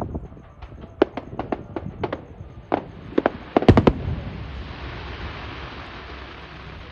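Fireworks going off: a quick string of sharp bangs, the loudest pair just before four seconds in, then a steady hiss that slowly fades.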